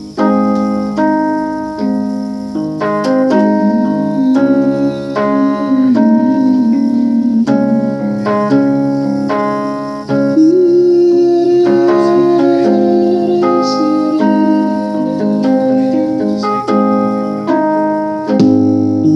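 Electric keyboard playing slow, sustained worship chords that change about once a second, with a wavering held melody note in the middle.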